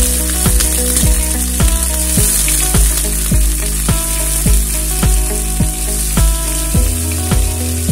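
Background music with a steady beat, about two thumps a second, over the high, steady sizzle of paneer pieces frying in a pan of hot oil.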